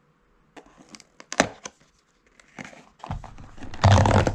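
Cardboard snack box being torn open at its perforated flap, followed by crinkling foil snack packets being handled inside it, in a series of sharp cracks and rustles.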